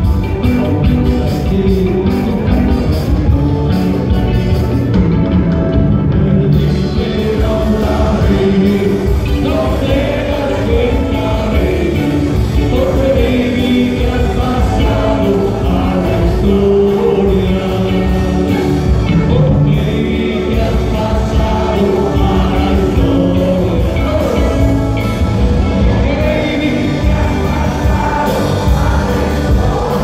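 Loud live band music with singing and electric guitar, played through a PA system and heard from among the audience.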